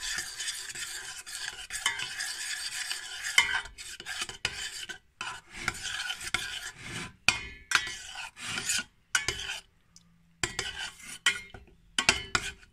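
Sauce being stirred in a stainless steel pot, the utensil scraping against the pot, as guar gum is worked in to thicken it. The stirring is continuous for the first half, then breaks into separate strokes with short pauses.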